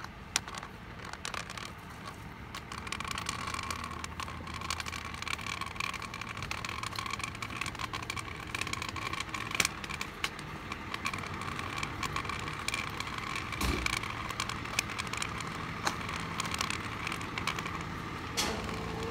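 Diesel engine of a porta-potty pump truck, a Cummins B6.7, running steadily with a low hum and a steady whine above it. Sharp irregular clicks of a cane tip tapping on concrete sidewalk come through over it.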